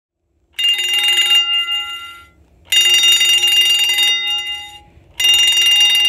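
Spring-wound mechanical fire alarm bell from an old heat detector, its clapper striking rapidly in three bursts of about a second each, with the bell ringing on briefly after each burst.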